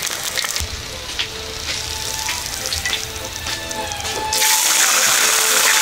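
Oil sizzling and crackling in a wok as eggs fry, with soft background music. About four seconds in, a louder, steady sizzle of hot frying oil starts abruptly.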